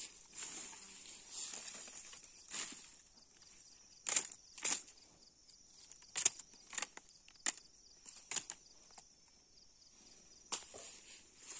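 Machete slashing through broom-grass stems and undergrowth: a rustle of leaves, then a run of about seven sharp strikes, spaced roughly half a second to two seconds apart.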